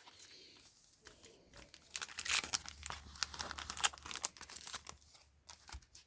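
Foil Pokémon booster-pack wrapper crinkling and being torn open, a dense run of sharp crackles that thins out near the end.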